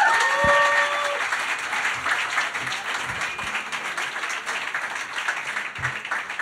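Audience applauding, with a few short shouts from the crowd in the first second; the clapping eases off slightly toward the end.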